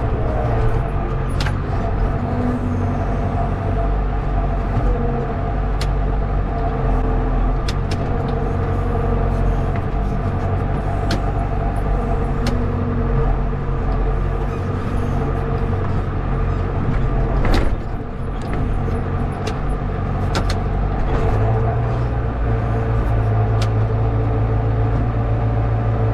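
Tractor engine running steadily under load, with scattered sharp clicks and knocks and one louder knock about two-thirds of the way in.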